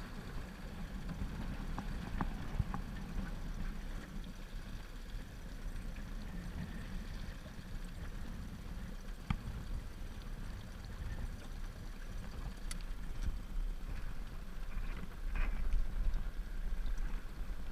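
Small aluminium boat under way: its tiller-steered motor running steadily as a low rumble, with water washing along the hull and a few light knocks against the metal.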